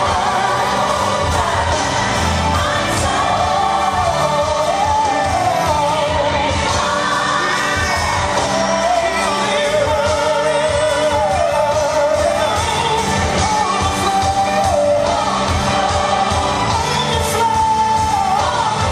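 Upbeat worship pop song playing: a singer's melody, with vibrato on held notes, over a full band with a steady beat.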